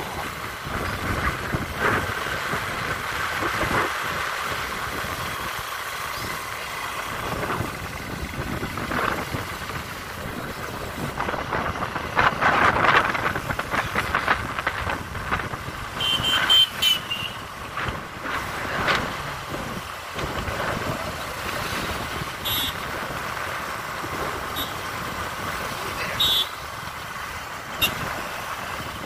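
Running engine and road noise of a small vehicle heard from aboard as it rides along, rising and falling in places, with a few brief high-pitched tones in the second half.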